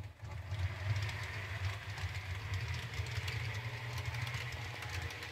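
Model train running on the layout: the small electric motor of a Hornby class 395 Hitachi model unit whirring steadily, with faint fine clicking of wheels on the track over a low, steady hum.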